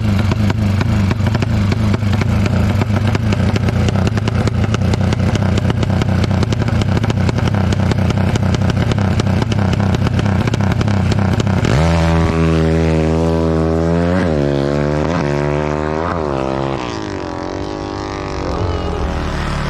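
Drag bike engine running hard at high revs, then, about twelve seconds in, launching: the pitch climbs steeply, drops back and climbs again with each gear change as the bike pulls away and fades off.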